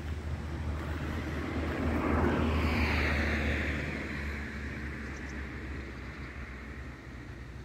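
A vehicle passing by: its noise swells about two seconds in, falls in pitch, then fades away.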